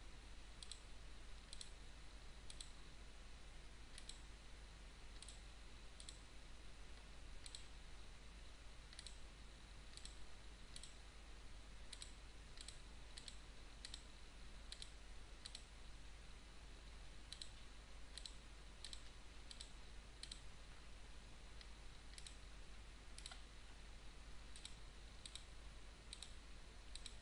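Faint computer mouse button clicks, single and irregular, about one or two a second, each placing another vertex of a spline being traced in 3D modelling software. A low steady hum runs beneath.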